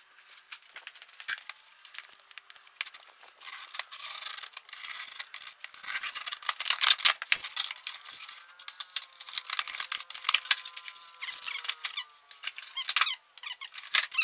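Cardboard carton of a breaker panel being opened by hand: flaps pulled apart and cardboard scraping, rubbing and crackling in irregular bursts, with a drawn-out squeak of cardboard rubbing in the middle.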